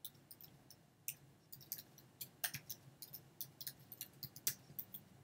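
Computer keyboard typing: a run of quick, irregular keystroke clicks.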